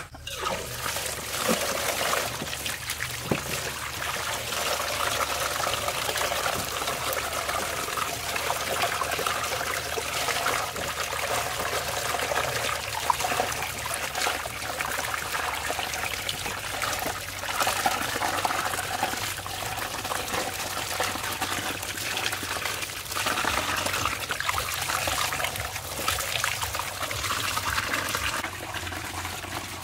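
Water running from a PVC pipe tap and splashing onto watermelons and into a metal basin as they are washed by hand. The flow starts abruptly as the tap is opened at the start.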